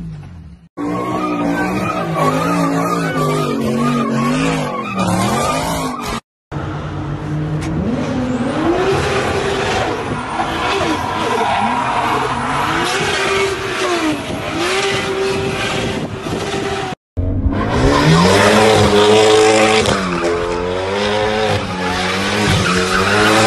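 Sports cars drifting: engines revving up and down hard while the tyres squeal and skid. It comes as separate short clips, with the sound breaking off abruptly about a second in, about six seconds in, and again near seventeen seconds.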